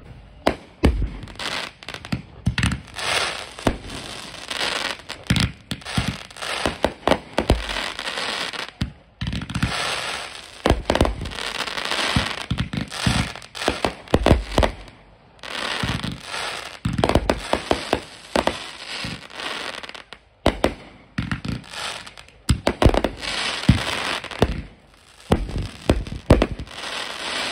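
Aerial fireworks going off in a rapid barrage: many sharp bangs of bursting shells over a dense crackle, with a few brief lulls.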